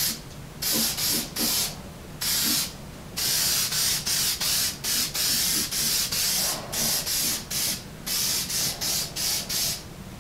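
Aerosol can of Eastwood rust converter spraying in quick repeated short bursts, about a dozen hisses with brief gaps and one slightly longer burst about three seconds in, stopping near the end. The converter is being sprayed on wet over rusty frame steel.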